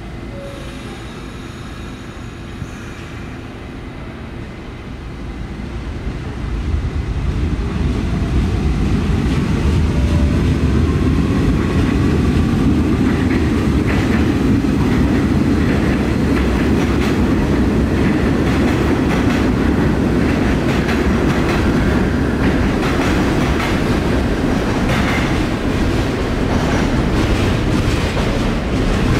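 New York City subway train running along elevated track: a low rumble that builds to loud about six seconds in, with the wheels clacking over rail joints.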